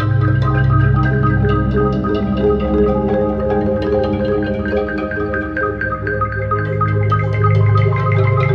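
Marimba music: many quick mallet notes ringing over one another, over fast repeated strokes on the low bars.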